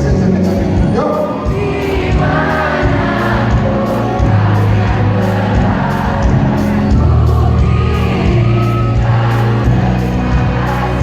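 Live pop concert music: a band playing over a steady beat with singing on top, heard as a loud, even mix through a crowd recording.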